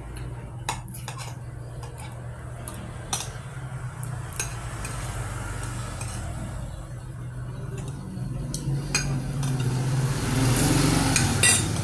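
Metal spoons and forks clinking and scraping on ceramic plates during a meal, in scattered short clicks. A steady low hum runs underneath, and the background grows louder near the end.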